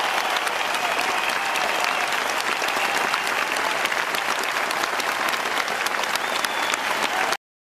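Large theatre audience applauding, a dense steady clapping that cuts off abruptly near the end.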